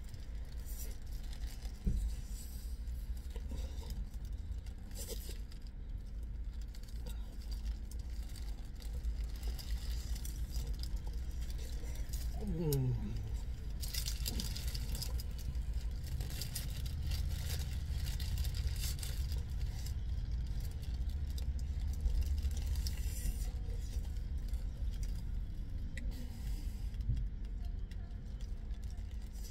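Paper food wrapper rustling and crinkling in the hands while a wrap is eaten, with bursts of crackle over a steady low rumble inside the car.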